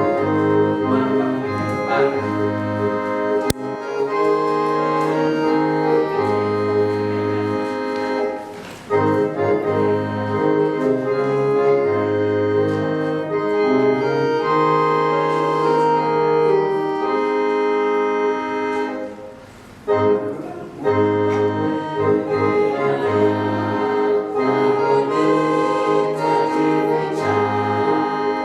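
Organ-style keyboard music playing slow held chords over a bass line that moves note by note, with a brief quieter moment about two-thirds of the way through.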